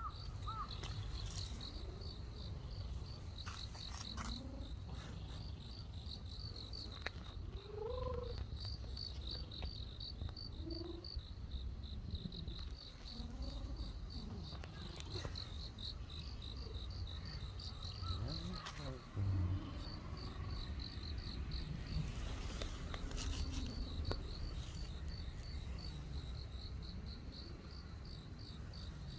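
Insects trilling steadily in a fast, pulsing high chirp, over a low steady rumble that fits a cat purring while being petted. A few short, soft rising calls come in here and there.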